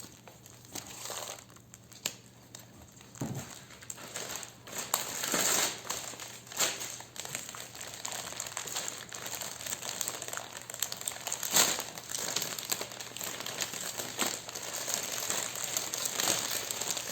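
Wrapping paper on a flower bouquet being unwrapped and handled: an uneven run of crinkling and rustling with sharper crackles now and then, the loudest about two thirds of the way through.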